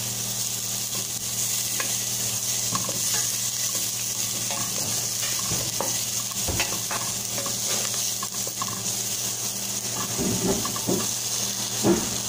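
Diced onion and ginger sizzling in a little oil in a stainless steel pot, stirred with a wooden spoon that knocks and scrapes against the pot. There is a louder knock near the end.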